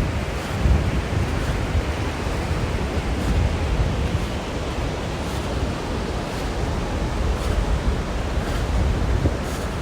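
Wind buffeting the microphone, a steady low rumble over the even hiss of ocean surf on a beach.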